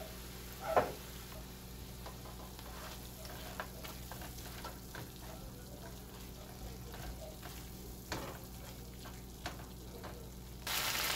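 Silicone spatula stirring chunks of lamb, onion and tomato in a nonstick frying pan: soft scrapes and clicks over faint sizzling. Near the end a much louder sizzle starts abruptly.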